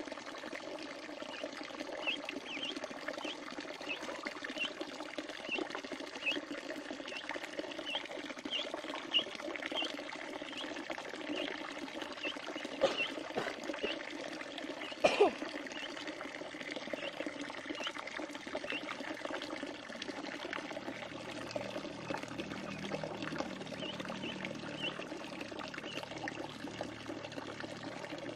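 Water splashing and trickling steadily as a duck and ducklings paddle and bathe, with the ducklings' short high peeps repeating often through the first half and only now and then later. A sudden sharp sound about halfway through.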